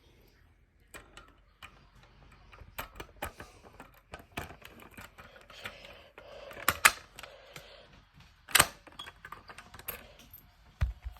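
Irregular light clicks and taps, the louder ones a little under 7 seconds in, about 8.5 seconds in and near the end.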